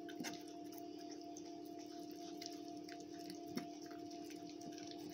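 Two Border Collie puppies licking and chewing sardines from a stainless steel bowl: many small wet clicks and ticks, with a sharper knock against the bowl about a quarter second in and again about three and a half seconds in. A steady background hum runs underneath.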